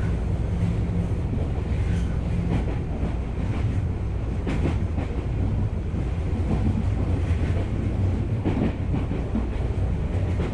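Tokyu Oimachi Line electric commuter train running at speed, heard from inside the passenger car: a steady rumble of wheels on rail with scattered short clicks from the track.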